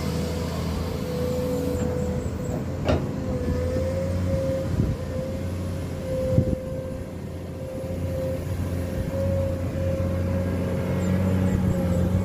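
Komatsu PC210 excavator's six-cylinder diesel engine running steadily while digging, with a steady whine over the engine note. Three short knocks come through as the bucket works the rock and soil of the pit floor.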